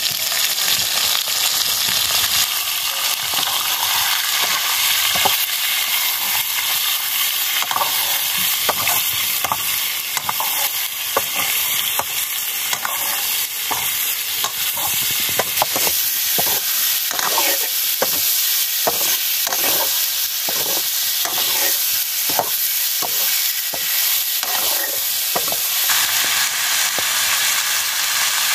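Pieces of meat sizzling as they fry in a metal wok, with a metal ladle scraping and stirring through the pan. Through the second half the stirring strokes come in a steady rhythm of about two a second.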